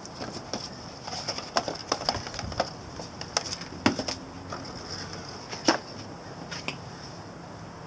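Irregular small clicks, taps and knocks of hands handling small parts, with two sharper knocks about four and six seconds in.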